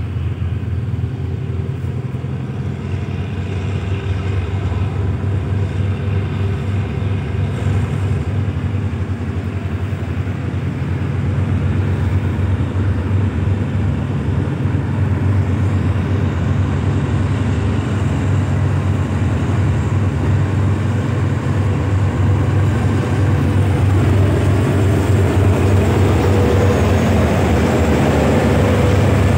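Hitachi diesel-electric locomotive's engine running with a steady low hum, growing gradually louder as it hauls a passenger train out of the station, with more rushing running noise toward the end.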